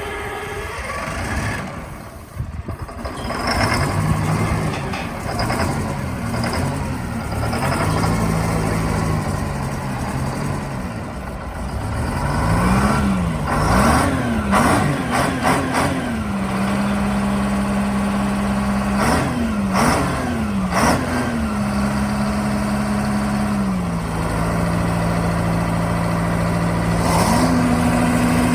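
Engine of a Hopto H-1900 hydraulic excavator being revved up and down over and over, then settling into a steady run about two-thirds of the way through, its pitch stepping up near the end.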